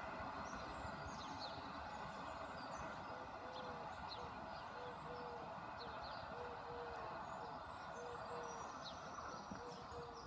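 Small birds chirping over a faint, steady background rumble. From about three seconds in, a low short call repeats roughly twice a second.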